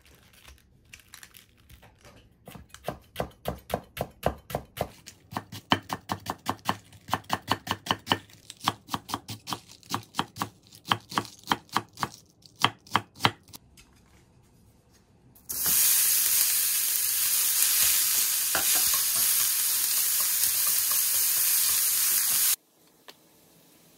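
A kitchen knife shredding cabbage on a wooden cutting board, a quick run of crisp strokes several a second. After a short pause comes a loud, steady sizzle of ground pork frying in a pan, which cuts off suddenly near the end.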